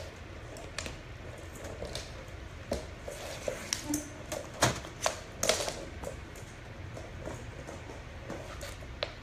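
Irregular clicks and knocks of a puppy's claws and a self-moving toy ball on a hardwood floor as the Old English Sheepdog puppy chases and pounces on the toy. The knocks come thickest in the middle, and the loudest come about four and a half and five and a half seconds in.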